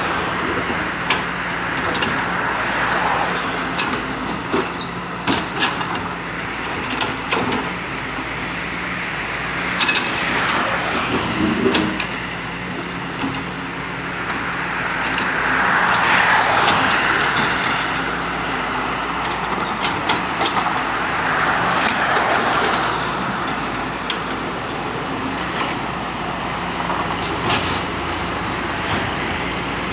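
Diesel engine of a Doosan DX140W wheeled excavator running steadily, with scattered sharp knocks. The noise of passing traffic swells and fades twice in the second half.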